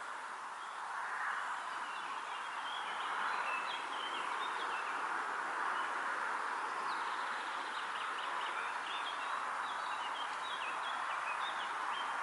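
Summer pond-side ambience: a steady rushing hiss that swells slightly about a second in, with many short, high chirping calls over it.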